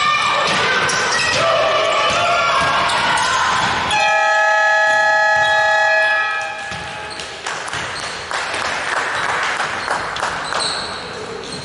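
A basketball bounces on the hardwood court among shouting voices. About four seconds in, the gym's game-clock buzzer sounds one long, steady horn blast of about two seconds, as play stops.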